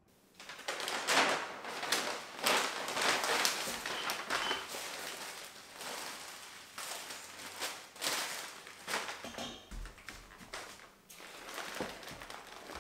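Packing paper crinkling and rustling as it is pulled off a wire fruit basket, with a few light knocks. The crackling is busiest in the first half and thins out later.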